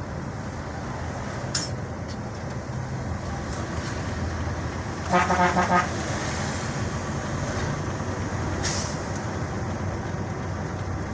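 Vehicle engine and road noise heard from inside the cab while driving, with a horn tooted in four quick beeps about five seconds in.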